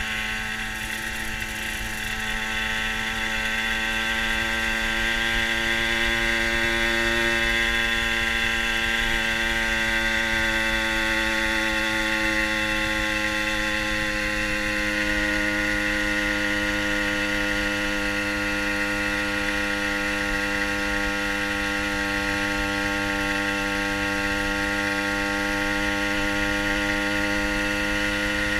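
Fantic TI sports moped's small two-stroke engine running steadily at cruising speed, heard from the rider's seat. Its note drifts gently up and down in pitch as the speed changes a little.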